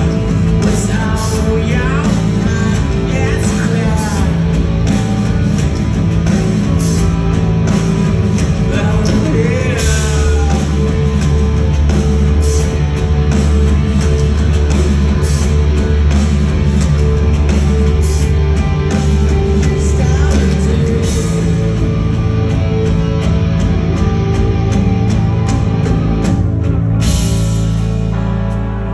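Rock band playing live, recorded from within the audience: electric guitar, bass and drums with steady cymbal hits and heavy sustained low notes, and a male voice singing at points.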